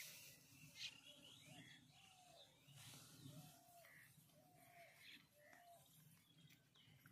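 Faint bird calls: a string of short repeated notes, one or two a second, with some higher chirps, over quiet open-field ambience.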